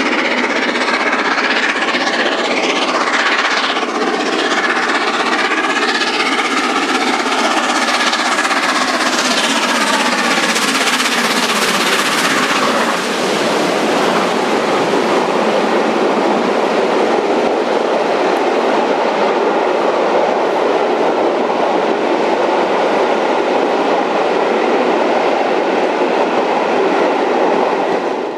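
Steam locomotive 60163 Tornado, a three-cylinder Peppercorn A1 Pacific, working a passenger train past, its sound falling in pitch as it goes by. This is followed by a steady rush of the coaches rolling past on the rails.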